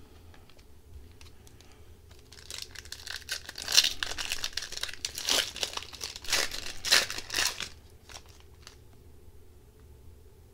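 Upper Deck hockey card pack wrapper being torn open and crinkled by hand: a run of crackling tears and crinkles from about two seconds in until nearly eight seconds in.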